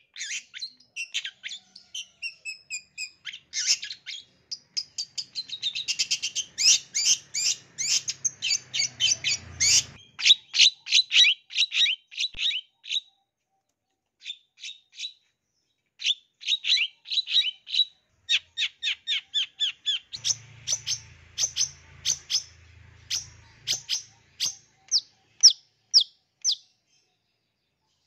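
Long-tailed shrike (cendet) singing: rapid trains of short, high, repeated chirps, pausing for a few seconds midway and stopping shortly before the end.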